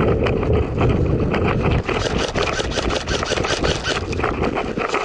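Wind rumble and knocking from a body-worn camera while a player runs across grass, then a run of clattering gear and scraping as he drops in behind an earth mound.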